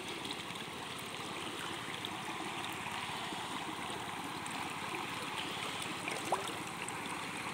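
Steady trickle and lapping of water as a mesh net bag full of small fish is held up in shallow, muddy water.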